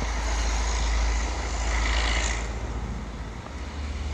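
Wind buffeting the microphone in a snowstorm: a steady low rumble under a hiss, with a brief louder rush about two seconds in.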